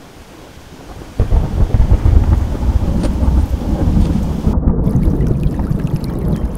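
Thunder over steady rain: a loud, low rumble breaks in suddenly about a second in and keeps rolling.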